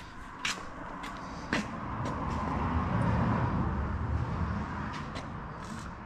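A motor vehicle passing by: a low rumble that swells to a peak about three seconds in, then fades away. A few sharp clicks come in the first two seconds.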